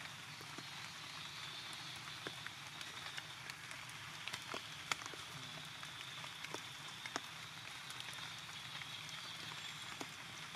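Steady rain, with scattered drops tapping close by.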